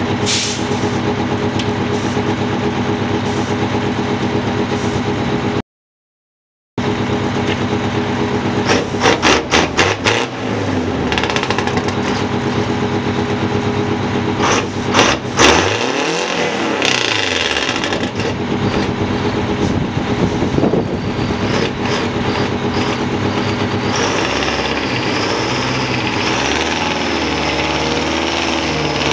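Two Detroit Diesel V8 two-stroke fire-truck engines, a 9-litre and a 12-litre, idling together with a steady even drone, cold and warming up. Partway through come a few runs of clanks and knocks, and near the end one engine's note rises and falls as the truck is driven off.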